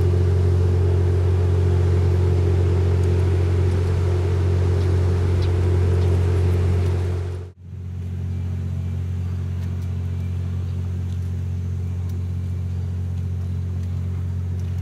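Diesel engine of the Kiha 87 series Twilight Express Mizukaze train running at the platform, a loud steady low drone. It breaks off abruptly about halfway through, and a quieter steady engine drone follows.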